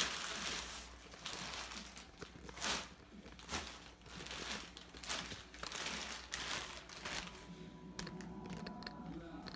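Thin plastic bags crinkling and rustling in a string of irregular bursts as hands untie and pull them open.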